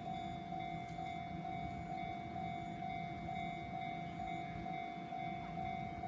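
Japanese level-crossing warning bell sounding its repeated electronic 'kan-kan' tone, about two strokes a second, as the crossing is closed for an approaching train. A low rumble runs underneath.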